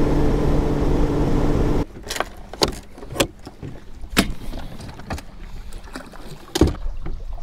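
Bass boat's outboard motor running under way, with wind and water rushing past, cutting off abruptly after about two seconds. Then a quieter stretch of scattered knocks and clunks on the boat's deck and bow-mounted trolling motor, the loudest near the end.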